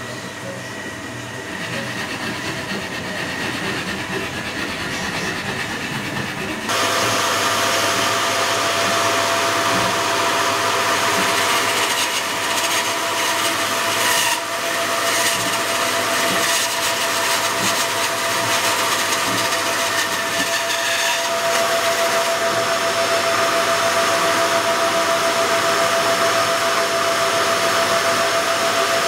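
Bandsaw running and cutting a viola neck-and-scroll blank out of a figured maple block, a steady whine over the machine noise. It comes in abruptly about seven seconds in, after quieter workshop noise.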